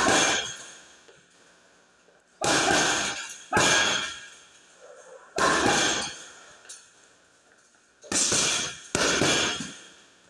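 Boxing-gloved punches landing on a hanging heavy punching bag: six hard hits at uneven intervals, two of them in quick pairs, each ringing on for about a second.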